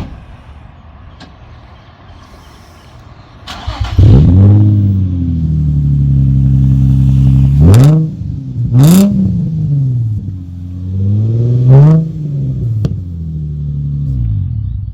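Nissan 350Z's 3.5-litre V6 through a newly fitted aftermarket exhaust: it fires up about four seconds in, settles into a steady fast idle, then is revved in three sharp blips that each fall back to idle.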